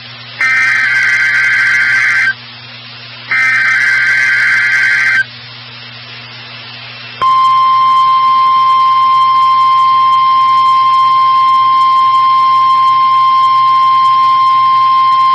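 NOAA Weather Radio SAME data header: two raspy bursts of warbling data tones, each about two seconds long and a second apart. About seven seconds in, a steady single-pitch 1050 Hz weather radio warning alarm tone starts. These are the alert tones of the weekly test, sent to set off weather alert receivers.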